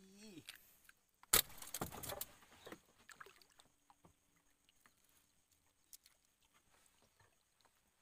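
A sharp knock about a second in, followed by a couple of seconds of rattling clatter, then faint scattered ticks, like gear being handled in a small boat.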